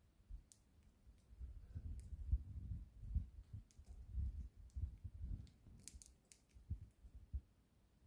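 Budgerigar cracking and husking seed from a person's palm: scattered sharp little clicks, several in quick succession about six seconds in, over a low uneven rumble.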